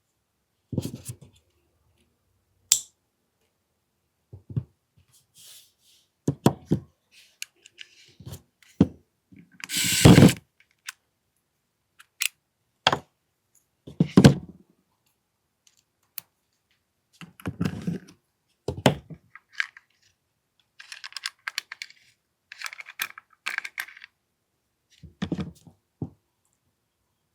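Clicks, knocks and short scrapes of an AAP-01 airsoft pistol's small parts and tools being handled during disassembly of the hammer housing, coming in scattered bursts with gaps, the loudest a longer scrape about ten seconds in.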